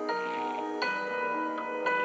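An Apple iOS 17 ringtone playing: a bell-like melody of struck, ringing notes, with a new note or chord about once a second.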